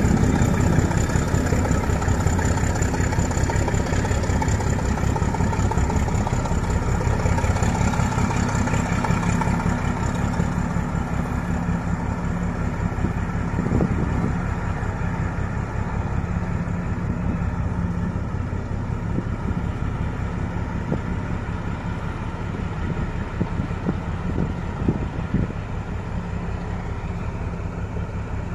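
D12E diesel locomotive's engine running steadily as the locomotive pulls into a tunnel, its sound slowly fading.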